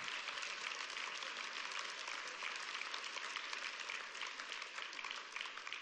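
Church congregation applauding: many hands clapping together, starting to die down near the end.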